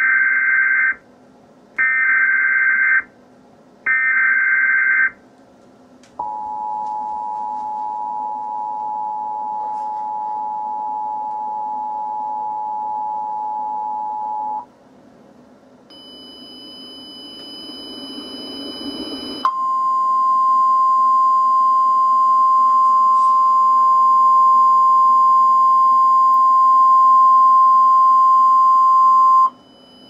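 Emergency Alert System tornado warning alert: three one-second bursts of SAME header data tones two seconds apart, then the two-tone 853 and 960 Hz attention signal held for about eight seconds. After a brief gap with faint hum comes a single steady tone of about 1050 Hz, the NOAA Weather Radio warning alarm tone, lasting about ten seconds and ending abruptly.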